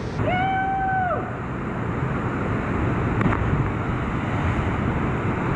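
Steady rush of a river and waterfall, with a person's long held yell lasting about a second near the start that drops in pitch as it ends. About three seconds in, a brief splash as a body hits the water below the bridge.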